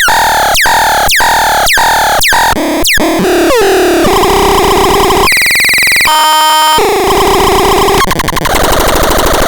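Synthesizer repeating one note about twice a second, each attack sweeping down in pitch, then switching through several different sounds: a steady tone, a short burst of noise, a buzzy chord, and a fast warbling buzz near the end.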